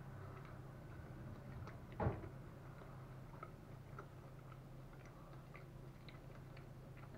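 Hands handling a lavash wrap: faint small crinkles and ticks at irregular intervals, with one louder knock about two seconds in, over a low steady hum.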